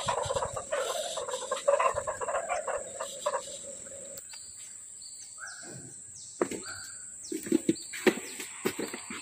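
A rasping buzz that stops abruptly about four seconds in, then scattered short bird chirps over a steady high-pitched insect whine.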